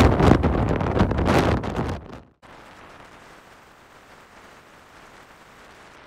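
Strong gusting wind buffeting the microphone, which cuts off suddenly about two seconds in; after that only a faint steady hiss remains.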